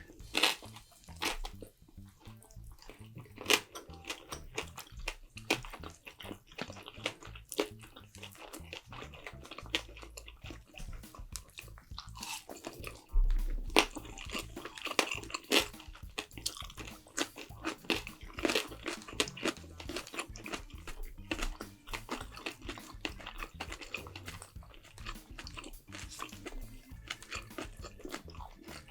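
A person eating: chewing and crunching food, with many irregular sharp clicks and smacks.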